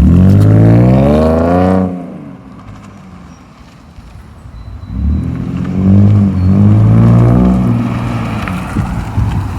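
2017 Ford Mustang's 3.7-litre V6 with its mufflers deleted, revved twice: the pitch climbs for about two seconds and drops off sharply, then rises again about five seconds in and settles back to idle near the end.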